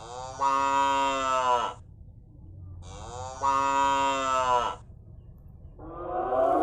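Cow mooing: two long moos of the same shape, each rising in pitch at the start and held for nearly two seconds, then a third, wavering moo begins near the end.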